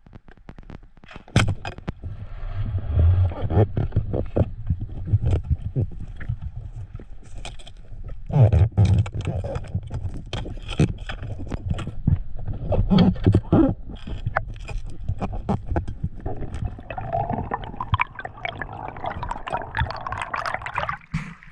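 Underwater sound of a speargun hunt: a sharp crack from the speargun about a second in, then many knocks, clicks and low thumps as the spear, line and struggling fish knock about. A bubbly rush of water builds near the end.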